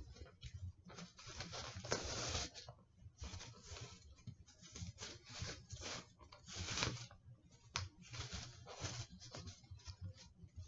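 Cotton t-shirt rustling and rubbing as it is pulled and adjusted over a wire coat-hanger frame on a cardboard base, in irregular handling scrapes with a sharp click a little before 8 seconds in.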